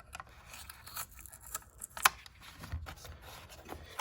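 Handling noise from a stainless steel folding multitool: light metal clicks and scraping, with one sharper click about two seconds in.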